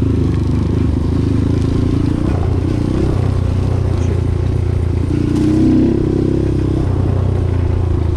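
Dirt bike engine running steadily at trail speed, heard from on the bike, with a short rise in revs about five seconds in.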